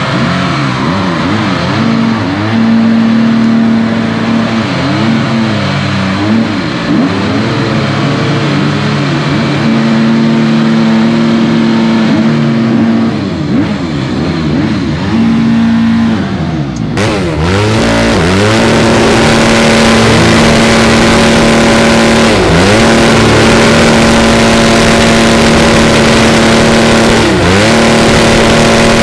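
Car engine held at high revs during a tyre-smoking burnout. The note holds steady and dips briefly every few seconds as the throttle is eased and reapplied. Partway through the sound changes abruptly and becomes brighter and fuller, with the engine again held high with short dips.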